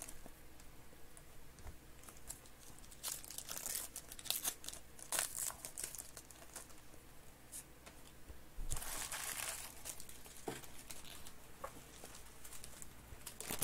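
Foil trading-card packs crinkling and tearing open, and cards being handled, in short scattered rustles with one longer crinkle about nine seconds in.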